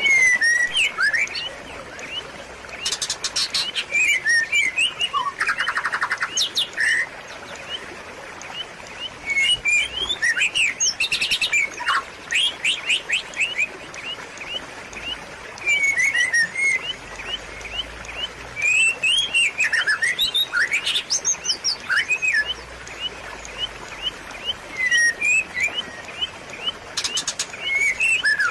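Songbird chirps and calls in bouts every few seconds: short sweeping notes and fast rattling trills. Under them runs a steady hiss of trickling water.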